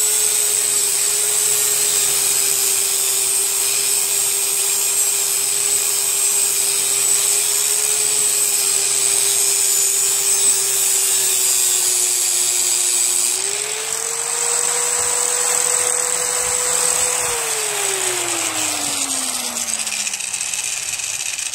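Electric power tool grinding a steel push-mower blade to sharpen it, its motor running steadily under load with a high grinding hiss. About two-thirds of the way through the grinding stops and the motor speeds up freely, then it is switched off and winds down to a stop near the end.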